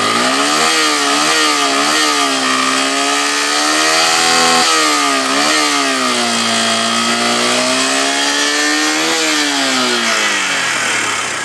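A 2014 Yamaha FZ16's carbureted single-cylinder engine being revved through its stock exhaust. It is run up and held with small wavers, drops sharply about halfway and picks up again, holds a long steady rev, then winds down toward idle near the end.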